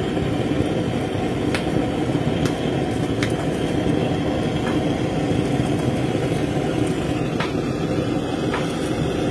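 Handheld butane cartridge torch burning steadily as it sears fish, a constant low rushing noise, with a few faint ticks from the searing skin.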